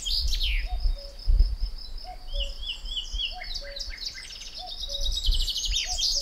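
Several birds singing at once: fast high trills and chirps, with a lower short call repeating about twice a second. A low rumble underneath swells about a second and a half in.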